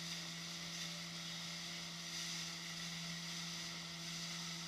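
Motorboat engine running steadily at towing speed, a constant low hum, with an even hiss of water and wind over it.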